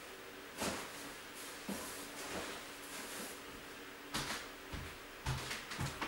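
Belongings and boxes being handled and moved: scattered knocks, clicks and light rustling, with a few heavier thuds in the last couple of seconds, in an empty room that echoes.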